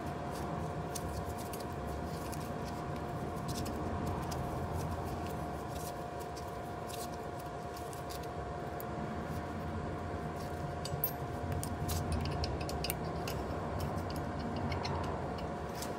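Scattered light metallic clicks and clinks of small Allen screws and an Allen key being handled as the screws are started into a new disc brake rotor on an electric scooter wheel, more of them in the second half, over a steady background hum.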